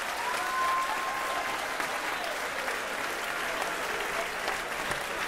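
Theatre audience applauding steadily after a punchline.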